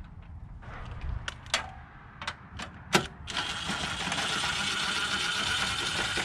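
A ratchet wrench running a bolt into the engine bay's old airbox mount: a few separate clicks and taps, then about three seconds of fast, continuous ratcheting.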